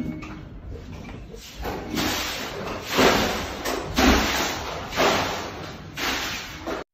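Bathwater in a freestanding tub sloshing and splashing out onto the floor in surges about once a second, thrown by earthquake shaking. It grows loud about two seconds in.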